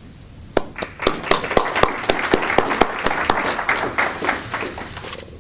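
Audience applauding, with separate hand claps standing out. It starts about half a second in and dies away near the end.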